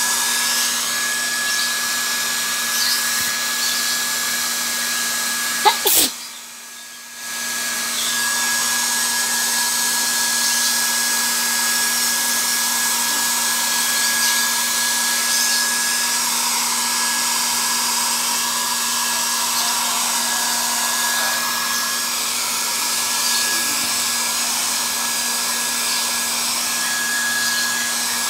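Hair dryer running steadily with an airy hiss and a steady hum. About six seconds in it is switched off with a click, and it starts again about a second and a half later.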